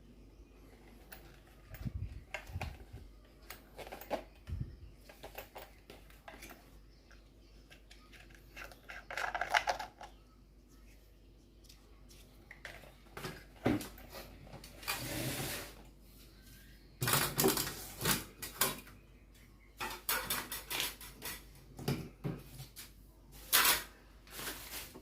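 Parts of a stand fan being handled and fitted together: irregular clicks, knocks and short rattles of hard plastic and metal pieces, with a few longer scraping stretches.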